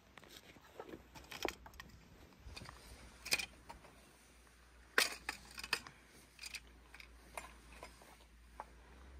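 Scattered light knocks and metallic clinks of kitchen work: a knife cutting turnips on a wooden board and metal dishes being handled, with the two loudest clinks about three and five seconds in.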